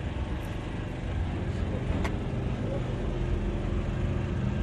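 Boat engine running with a steady low hum, and a single sharp click about two seconds in.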